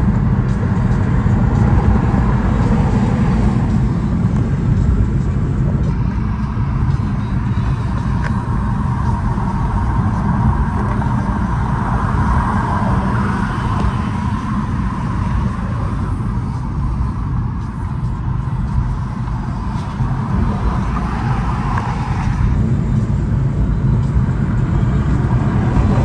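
Steady low rumble of road and engine noise inside a moving car's cabin at highway speed.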